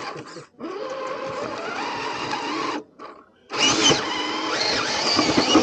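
Radio-controlled scale crawler truck's electric motor and geared drivetrain whining under throttle as it climbs over rock, in two bursts with a short pause about halfway.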